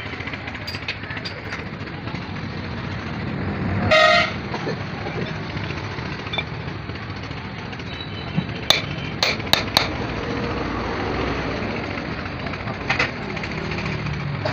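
Steady background traffic noise with a short vehicle horn toot about four seconds in. Later comes a quick run of four or five sharp clicks.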